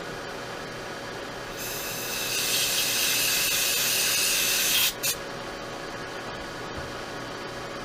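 A spray hiss of air or aerosol lasts about three seconds and cuts off sharply, followed by one short second burst, over a steady background hum.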